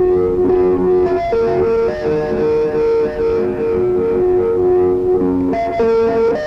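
Lo-fi cassette home recording of guitar music, dubbed through the air from one tape recorder to another. Long held, ringing guitar notes step between a few pitches, and the sound changes to a new chord near the end.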